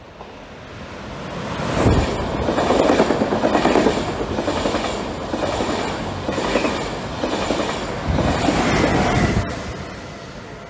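ÖBB Railjet passenger train pushed by a Taurus electric locomotive passing through a station. It builds up as it approaches, then the coaches rush by with the wheels clattering over rail joints. It is loudest about two seconds in and again around eight to nine seconds, then fades as the train pulls away.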